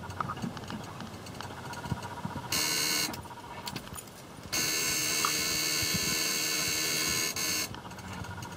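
Cab warning buzzer of a 1994 Ford F800 sounding in two steady blasts, a short one about two and a half seconds in and a longer one of about three seconds starting near the middle, with a few faint clicks between, as the ignition key is worked. The battery has not enough juice to crank the engine.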